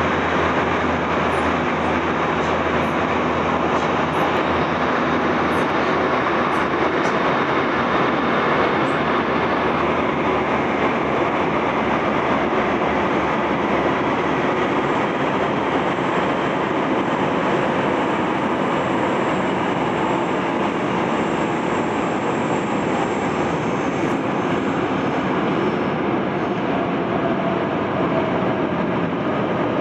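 Electric train running at speed through a tunnel, heard from inside the carriage: a steady, loud rumble and rush of wheels on rail and air.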